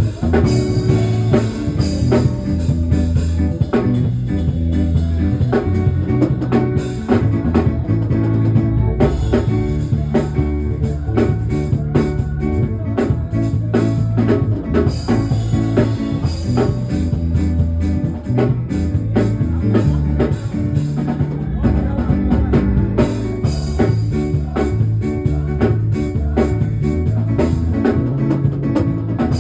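Instrumental band music with bass guitar, guitar and drum kit playing a steady beat.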